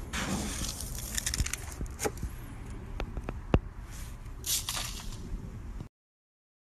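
Close handling noise at a plastic bucket of fish food pellets: scattered light clicks and scrapes over a low steady hum, with a brief rustling hiss about four and a half seconds in. The sound cuts off abruptly near the end.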